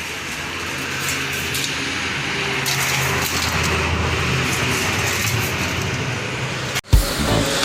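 An engine running steadily under a rushing noise, cut off abruptly near the end with a single thump.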